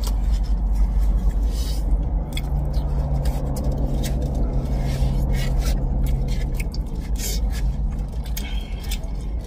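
Close-up eating sounds: noodles chewed and slurped while plastic forks scrape and tap in styrofoam takeout boxes, heard as many short clicks and scrapes. Under them runs a steady low rumble inside the car cabin, with a steady low hum from about two to six and a half seconds in.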